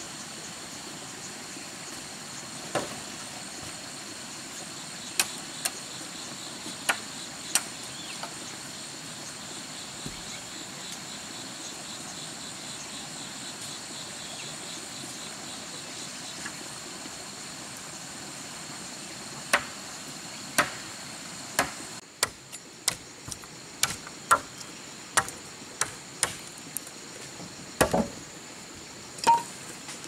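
Sharp knocks of a hand tool striking, a few scattered blows at first, then a quicker run of about a dozen strikes roughly two a second in the last third, over a steady high-pitched background drone.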